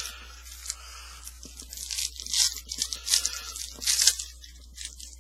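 Foil trading-card pack wrapper crinkling and tearing as it is opened by hand, in a run of short, uneven rustles.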